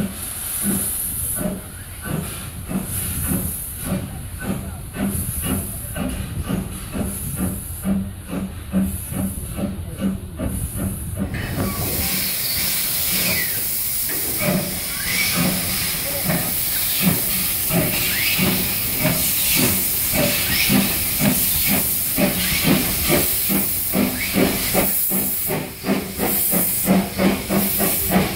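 Steam locomotive working with a regular beat. About twelve seconds in, a loud hiss of escaping steam starts and continues over the beat.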